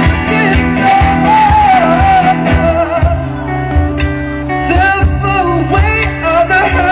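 Live acoustic band music: a singer's melody over acoustic guitar accompaniment.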